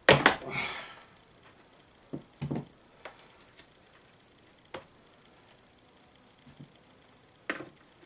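Hand-tool and handling noises on a plastic leaf-blower housing: a loud clunk right at the start with a short rattle after it, then scattered lighter knocks and clicks as pliers work at the primer bulb.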